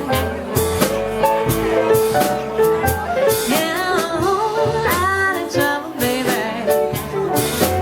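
A band playing a song with a lead voice singing over it, held instrument notes underneath and drum hits keeping a steady beat.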